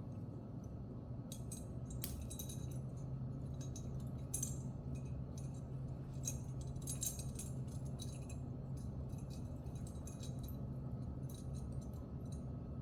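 Faint jingling and clinking of small metal bag hardware being handled, in scattered light clicks over a steady low hum.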